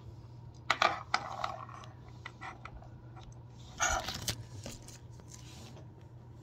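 Sticky jelly slime and fingers pressing and shifting on the phone right at its microphone: a cluster of sharp clicks and crackles about a second in and another about four seconds in, over a low steady hum.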